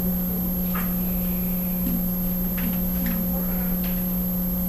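Steady electrical hum and buzz, with a few faint, brief rustles of Bible pages being turned.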